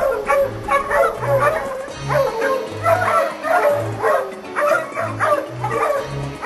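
Background music with a steady bass line, with dogs barking and yipping over it.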